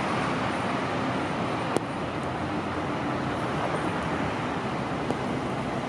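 Steady traffic noise on a rain-wet city street, with buses and a fire engine running. A sharp click comes a little under two seconds in, and a fainter one about five seconds in.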